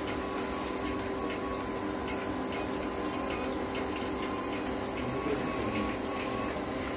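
Steady rushing water noise with a constant low hum from a running steam distillation plant.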